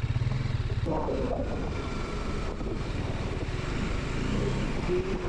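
Motorcycle running steadily while being ridden along the road.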